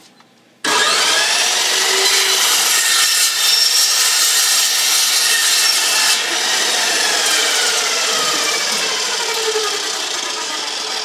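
Milwaukee 14-inch metal-cutting chop saw with a carbide blade switching on about a second in and cutting through 1-inch round metal tubing, very loud, the tube ringing with many tones like a wind chime. In the last few seconds the level eases and the tones slide downward as the blade winds down.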